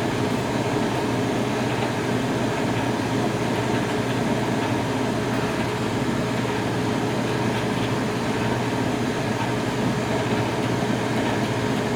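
Oliver Model 600 drill grinder running, its motor and grinding wheel spinning with a steady hum and whir.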